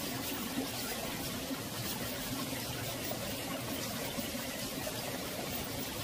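Mountain valley stream flowing steadily, an even rushing trickle that sounds like beads rolling.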